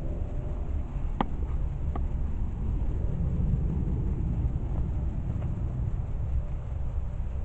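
Steady low outdoor rumble, with a few faint clicks about a second in and again around two seconds.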